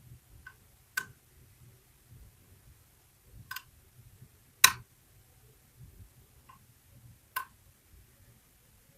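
Lock picks and tension wrench working a KeyMark lock cylinder: sparse, sharp metal clicks every second or two, the loudest about halfway through.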